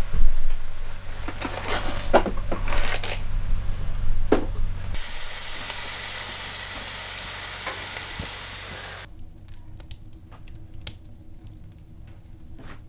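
Knocks and clatter of cooking gear, then food sizzling steadily in a frying pan as it is stirred with a utensil. After a cut about nine seconds in it goes quieter, with the sparse pops of a wood stove fire crackling.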